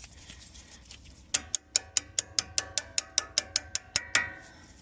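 Rapid, evenly spaced light metal-on-metal taps with a slight ring, about six a second for nearly three seconds, at a brake caliper as a pad retaining pin is worked through.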